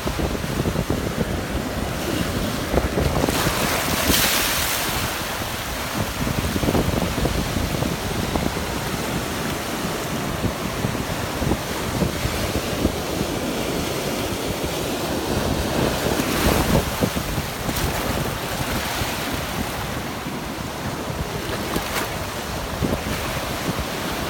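Sea surf washing onto a beach, with wind buffeting the microphone; the wash swells louder about four seconds in and again around sixteen seconds in.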